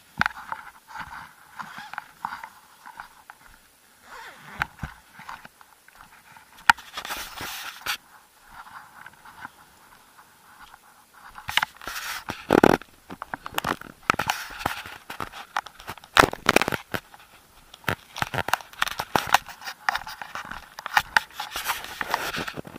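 Irregular crunching and scraping close to the microphone: footsteps on gravelly dirt and rubbing on the camera as it is carried.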